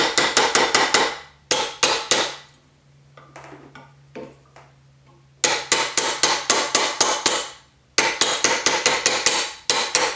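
Plastic mallet striking a reticulated silver cuff over a steel forming stake, in quick runs of about five or six blows a second, each with a short metallic ring. The blows pause for about three seconds after the first two seconds, then resume and run on with a brief break.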